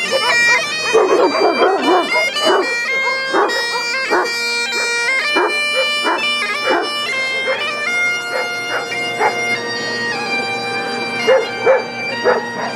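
Great Highland bagpipe playing a tune over its steady drone. Dogs bark and yip over it, mostly about a second in and again near the end.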